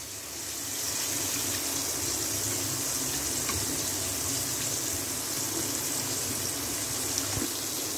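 Chicken 65 pieces deep-frying in hot oil in a kadai, a steady sizzle as the oil bubbles around them.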